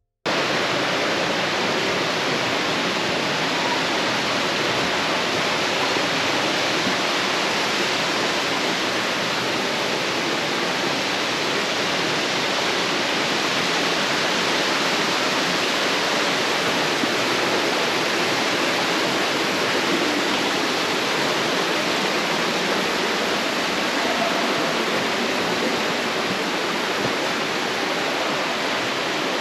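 Rushing water running steadily, a dense even rush that cuts in abruptly just after the start.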